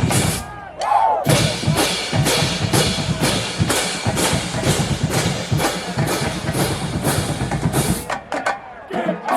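Marching band drumline playing a driving cadence, with bass drums under rapid repeated hits at about three a second; the drumming breaks off about a second before the end.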